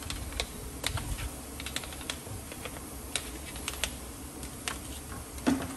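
Long-handled wheel brush scrubbing the wet inner barrel of an alloy wheel, with irregular light clicks and taps, a few a second, as the brush works against the rim and spokes.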